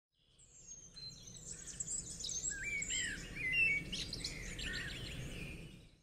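Birds chirping in quick, overlapping calls that glide up and down in pitch, coming in about a second in and fading away near the end.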